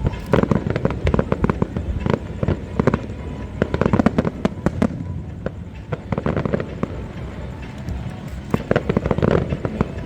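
Aerial fireworks going off in rapid volleys of bangs and crackles. The heaviest volleys come near the start, about four seconds in and near the end, with a lighter spell between.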